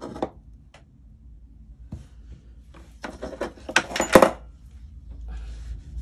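Jewellery pliers picked up and handled on a tabletop: a couple of light clicks, then a cluster of sharp metallic clinks and rattles from about three seconds in, loudest just past four seconds.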